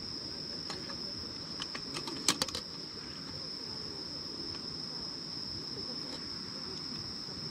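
An insect's steady high-pitched trill over the low murmur of a shallow stream, with a quick cluster of sharp clicks a little over two seconds in.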